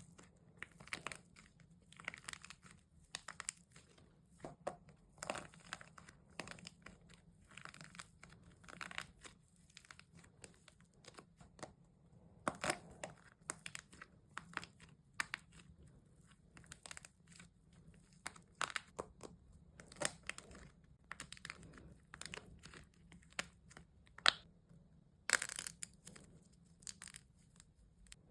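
Hardened wax coating being squeezed and cracked: a long string of irregular crackles and crunches, some sharper and louder than others.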